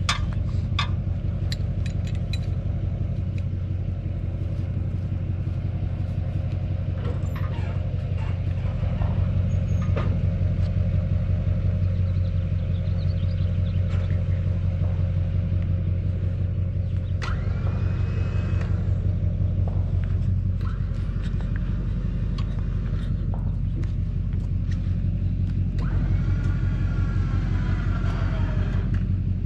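A vehicle engine idling steadily, a low even rumble. Twice, a higher whine slides in pitch over it: just past halfway and again near the end.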